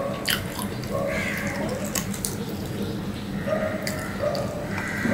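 Close-up eating sounds: wet chewing and smacking of a mouthful of rice and curry, with scattered sharp mouth clicks, while fingers mix food on a steel plate.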